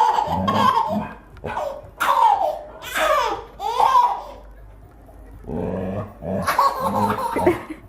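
A dog barking and vocalising, with a baby laughing, in a series of short bursts separated by brief pauses.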